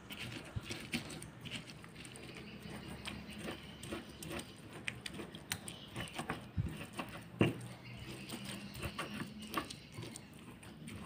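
Fresh corn kernels being crushed and ground with a pestle in a stone mortar: irregular wet squelching and scraping, with occasional sharper knocks of pestle against stone.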